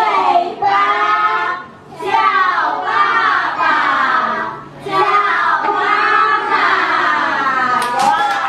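A group of young children reciting a rhyme together in unison in Mandarin, in phrases broken by two short pauses. A few sharp handclaps come near the end.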